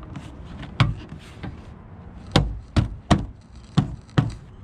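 A Subaru WRX rear door card being pressed back onto the door, its plastic retaining clips snapping in: six sharp knocks, irregularly spaced, most of them bunched in the second half.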